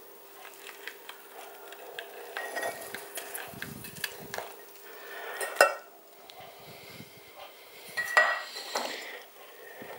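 Thin custard mixture of milk, egg yolks and cornflour pouring into a stainless steel saucepan, with kitchenware clinking and knocking against the pan. The sharpest knock comes a little past halfway, and a few more clinks follow near the end.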